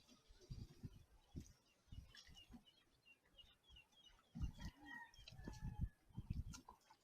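Faint, scattered low thumps and knocks, with a bird chirping in the background: a quick run of short high notes about two seconds in and a couple of brief whistled notes near the middle.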